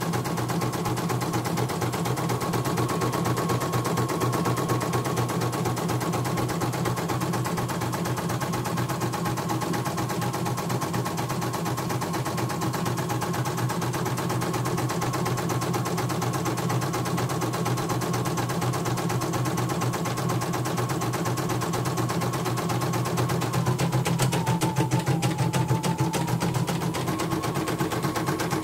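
CNY portable computerised embroidery machine stitching a test design, the needle running a fast, even string of stitches without stopping. The run is a little louder for a couple of seconds about 24 seconds in.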